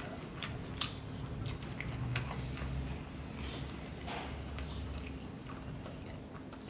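People chewing food close to the microphone, with mouth sounds and scattered light clicks of cutlery.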